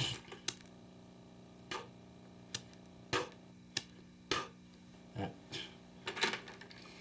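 Small hard items being handled and set down, with a scattered series of about eight to ten short clicks and knocks at irregular intervals.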